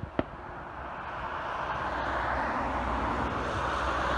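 Engine noise from an ATR 72 turboprop airliner moving along the runway: a steady rushing drone over a low rumble, growing gradually louder. A single sharp click comes a fraction of a second in.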